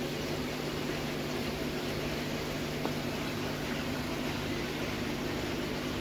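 Steady hum and even hiss of running aquarium equipment: air pumps, filters and air stones bubbling in the fish tanks.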